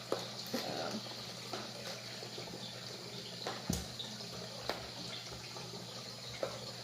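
Steady hiss over a low hum, with a few light knocks and clicks.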